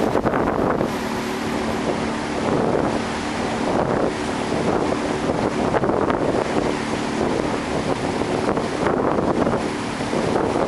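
Small boat's outboard motor running steadily under way, with wind buffeting the microphone.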